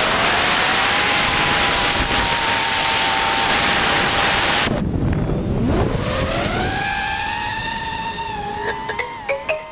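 A 5-inch FPV racing quadcopter's brushless motors and three-blade props whining, with the pitch swinging up and down as the throttle changes, and air rushing over the onboard camera. About five seconds in the whine drops away, then climbs again in a fast rising glide as the throttle is punched.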